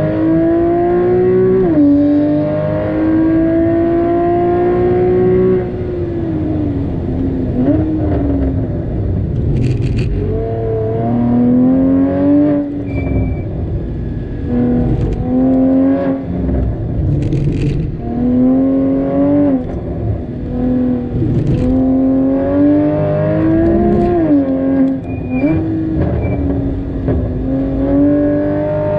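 Porsche Cayman GTS 981's 3.4-litre flat-six engine driven hard around a track, pulling up through the revs, dropping sharply at upshifts, and easing off and blipping on downshifts into corners.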